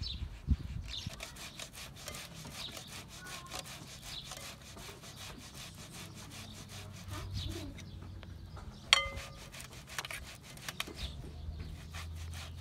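Peeled boiled potatoes being grated on a stainless steel box grater into a ceramic bowl: quick, repeated rasping strokes, with one sharp ringing metal clink about two-thirds of the way through.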